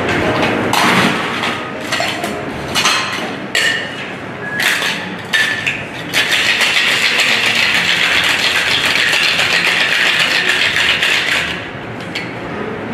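Clinks and knocks of ice and glassware as a cocktail shaker, a metal tin and mixing glass, is loaded and closed. About six seconds in, ice starts rattling hard as the shaker is shaken, and the rattling stops about a second before the end.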